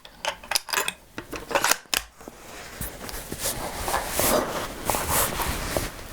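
Handling noise: a few sharp clicks and knocks in the first two seconds, then softer scraping and rustling.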